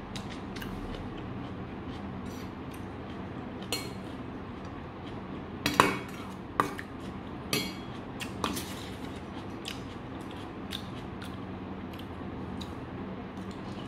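Metal spoon clinking and scraping against a stainless steel bowl while scooping rice, with a run of sharper clinks in the middle and lighter ticks throughout, over a steady background hum.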